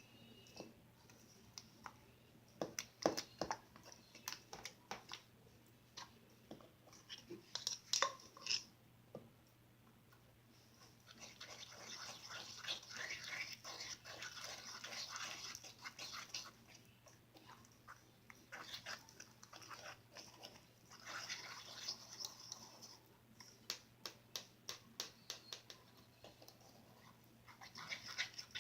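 Glossy slime being worked by hand, with clusters of sharp sticky clicks and pops and longer stretches of wet squishing.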